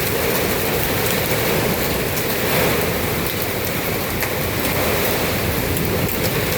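Heavy thunderstorm rain pouring down steadily, with scattered sharp ticks.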